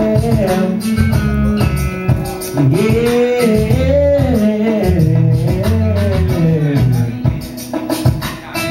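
A man singing a slow R&B song into a microphone over a recorded backing track with bass and a steady beat.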